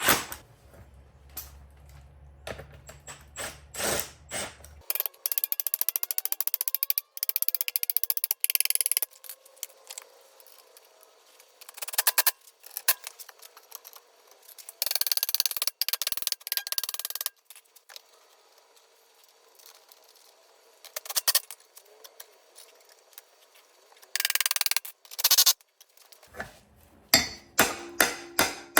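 Stiff, weathered G-body bucket seat track brackets being worked on by hand. There are sharp metal clicks from the track mechanism at the start and again near the end. In between come several long bursts of harsh, rasping noise as the tracks are cleaned and lubricated.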